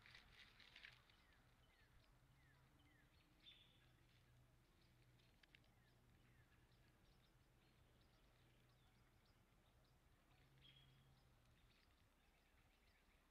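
Near silence with faint outdoor ambience: a few light crackles in the first second, then scattered faint, short, high bird chirps over a faint steady low hum.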